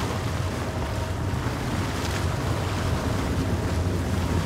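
Small boat's motor running steadily, a low hum under a haze of wind and water noise.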